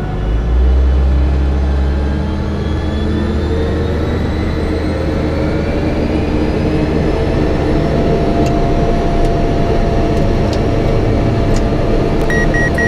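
Cessna Caravan's Pratt & Whitney PT6 turboprop engine starting up in the cockpit: a whine rising steadily in pitch as the engine spools up and the propeller begins to turn, with a low rumble in the first couple of seconds. A few sharp clicks come in the second half, and short beeps sound near the end.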